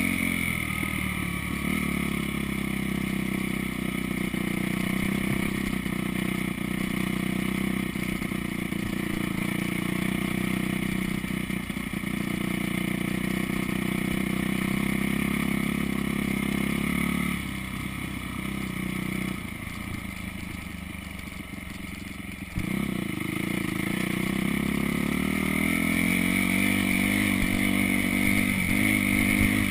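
Dirt bike engine running under throttle while riding, its pitch shifting up and down. It eases off and goes quieter for about five seconds a little past halfway, then pulls hard again and keeps rising toward the end.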